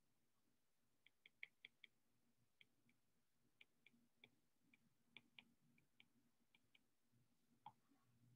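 Faint, irregular taps and clicks of a stylus tip on a tablet's glass screen while handwriting, beginning about a second in.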